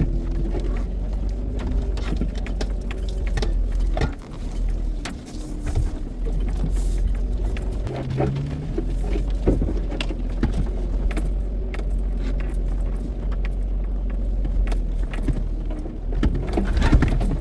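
Toyota off-road truck's engine running steadily as it crawls the trail, with scattered clunks and knocks throughout.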